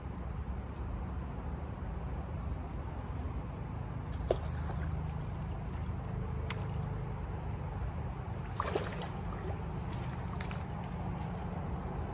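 Steady low rumble of distant road traffic, with a sharp click about four seconds in and a few short ticks a little before nine seconds.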